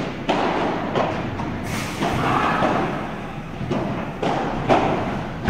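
Padel ball being hit back and forth with padel rackets in a rally: about seven sharp knocks at uneven intervals, each with a short echo of a large hall.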